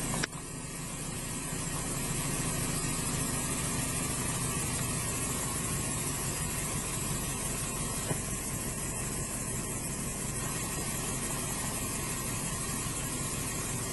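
Car engine idling: a steady low hum under an even hiss, with a single sharp click about a quarter second in.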